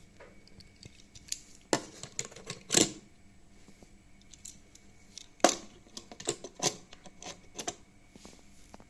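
Sharp clicks and clattering knocks of Hot Wheels die-cast toy cars and plastic track, in two bursts: one about one to three seconds in, the other from about five and a half to eight seconds in.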